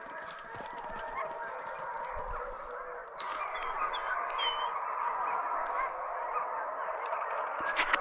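A pack of deer hounds baying together in a continuous, overlapping cry while running a deer, growing louder about three seconds in.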